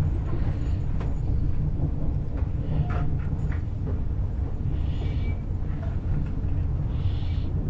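Passenger train running along the track, heard from inside the carriage: a steady low rumble of wheels and running gear, with a few faint clicks and two brief hisses late on.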